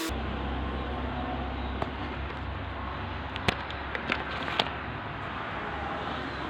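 Steady low hum of workshop background with a few sharp clicks or knocks, about two to five seconds in.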